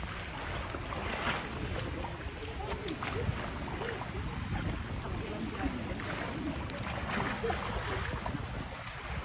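Wind buffeting the microphone over moving water, with scattered splashes from a hooked goliath grouper thrashing at the surface.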